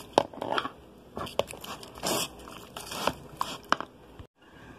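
A metal spoon stirring raw chicken fillets and seasoning in a plastic container: irregular wet squelches and clicks of the spoon against the container. The sound cuts off suddenly near the end.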